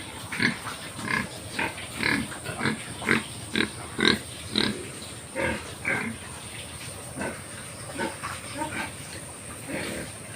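Pigs calling, a run of short calls about two a second, growing sparser after about six seconds.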